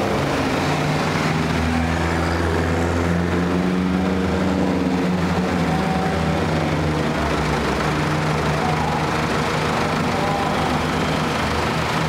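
Classic cars driving slowly past one after another, their engines running at low revs, with the engine note strongest from about a second and a half to seven seconds in.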